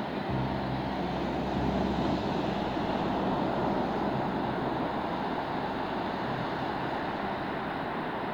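Steady wash of sea surf and wind, with a low engine rumble starting just after the beginning and running under it.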